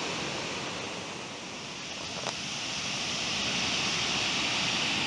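Steady rushing of river rapids, growing louder over the second half, with a single faint click about halfway through.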